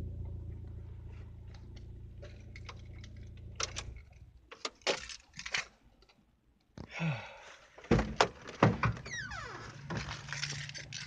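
A 1998 Mitsubishi Eclipse's engine idling as a steady low hum, then switched off about four seconds in. After it, a run of clicks, knocks and short scrapes from handling inside the car.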